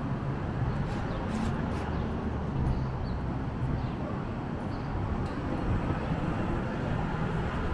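City street ambience: a steady hum of traffic, with a few faint, short high chirps.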